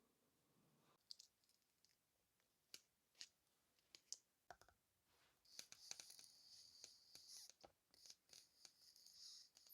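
Faint handling of paper stationery and its packaging: a few soft clicks and taps, then soft rustling from about five and a half seconds in.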